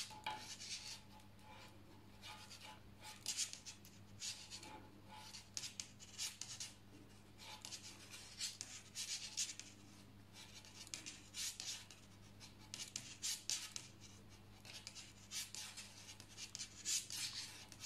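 Metal double-pointed knitting needles clicking and scraping against each other, with yarn rubbing over them, as stitches are knitted in the round: faint, irregular scratchy strokes, one or two a second.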